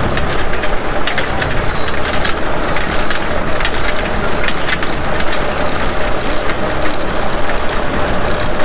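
Model T railcar under way on the rails: its four-cylinder engine running steadily, with irregular clicks and knocks from the wheels on the track.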